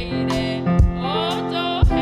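Church worship music: a song sung over instrumental backing, with a regular thumping beat about once a second.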